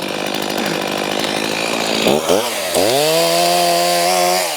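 Chainsaw cutting into a maple trunk during a felling cut. About two seconds in, the engine pitch dips and climbs back to a steady high whine at full throttle, then drops off as the throttle is released near the end.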